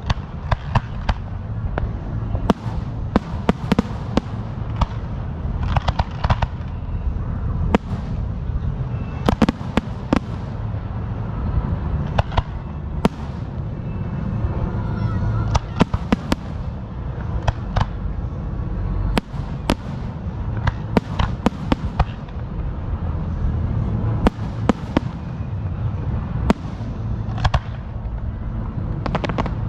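Fireworks going off: many sharp bangs and pops at an irregular pace, several a second at times, over a steady low rumble.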